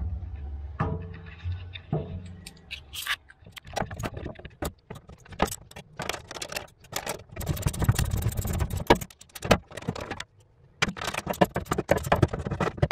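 A low rumble and a few knocks, then a hand ratchet with a 9/16 socket clicking in quick runs as the bolts holding a trailer tongue box are loosened, stopping briefly a little after ten seconds in.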